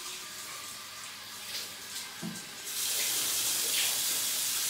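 Shower water running steadily. About two and a half seconds in, the bidet tap is opened and water rushes into the bowl, much louder.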